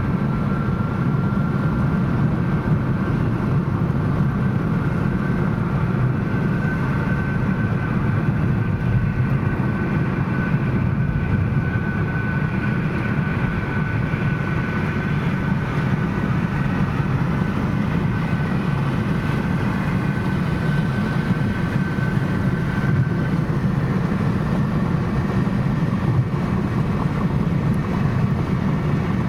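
Steady road and engine noise inside a car's cabin at highway speed, a constant low rumble. A faint high steady whine runs along with it and fades out about three quarters of the way through.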